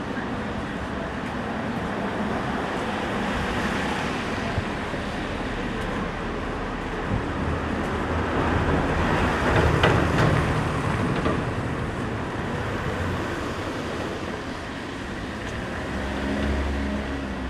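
Street traffic noise, with a vehicle going by that is loudest about halfway through and a low engine hum near the end.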